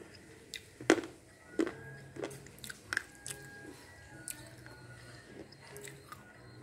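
Slate pencil being bitten and chewed: a string of sharp, dry crunching snaps, the loudest about a second in, then softer crunches fading toward the end.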